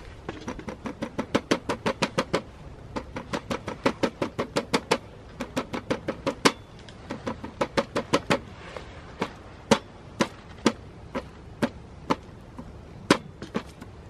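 A kitchen knife worked against a hard surface in quick runs of short, sharp strokes, about five or six a second. Past the middle the runs give way to single knocks about a second apart.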